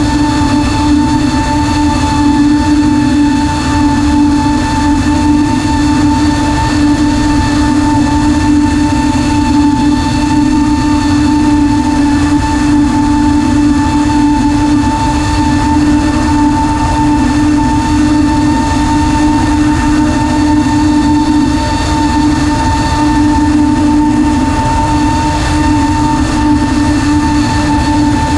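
FPV miniquad's brushless motors and propellers whining steadily at a constant pitch, with wind rushing over the onboard camera's microphone.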